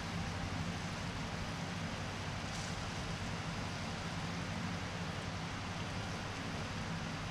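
Curry sauce boiling in a frying pan on a gas stove: a steady bubbling hiss, with a steady low hum beneath it.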